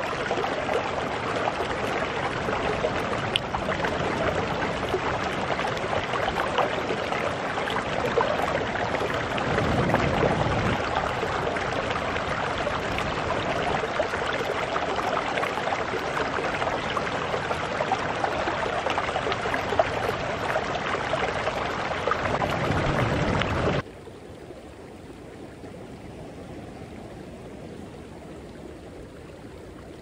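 Stream water running and splashing steadily over rocks into a pool at the head of a small waterfall. About 24 seconds in it cuts off suddenly to a much quieter steady hiss.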